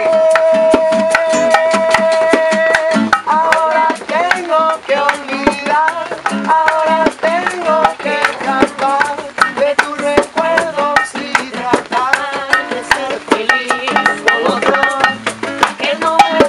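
A man singing to his own strummed acoustic guitar. He holds one long note for the first few seconds, then carries on with a wavering sung melody over quick, steady strumming.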